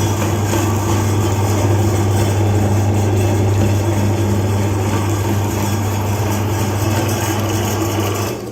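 Electric meat grinder motor running steadily with a strong low hum, and noise from the grinding mechanism above it; it stops near the end.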